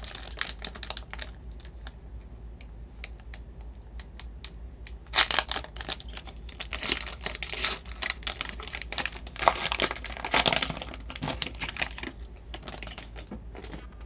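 Foil trading card pack crinkling and tearing as it is opened by hand, with scattered light clicks throughout and louder bursts of crinkling from about five seconds in.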